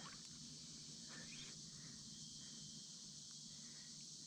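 Faint, steady chorus of insects: a high, even hiss with a thin held tone above it.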